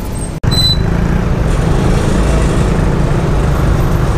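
Motor scooter riding in city traffic: a steady engine and road-noise rumble. There is a brief dropout a little under half a second in.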